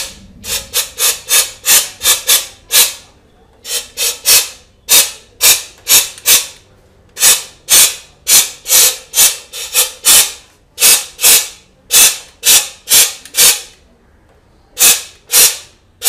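Electrostatic powder-coating spray gun spraying in short hissing puffs of air and powder, about two a second, in runs broken by brief pauses.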